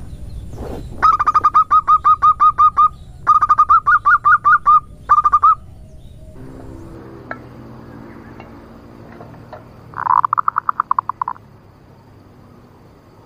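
Female zebra dove giving its rapid rattling 'nutut/ngerot' call: quick runs of short, clipped notes at about seven a second, three bursts in the first half and a shorter burst about ten seconds in.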